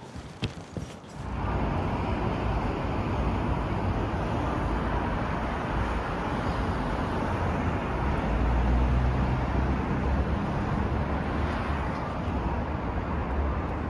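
Single-cylinder motorcycle pulling away about a second in, then running steadily at riding speed with wind and road noise. The low engine note strengthens a little past the middle.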